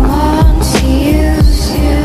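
Music with a low kick-drum beat, cymbal hiss and a gliding melody line, in a rhythm-and-blues style.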